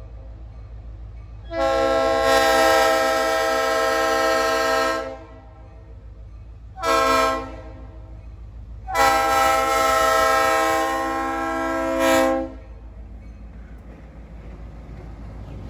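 Locomotive air horn sounding several tones at once: a long blast, a short one, then another long blast, the grade-crossing warning as the train approaches a road crossing. A low diesel rumble runs underneath and grows louder near the end as the locomotive reaches the crossing.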